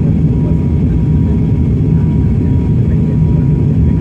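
Airliner cabin noise in flight on descent: a loud, steady rumble of engines and airflow, with a faint steady high tone above it.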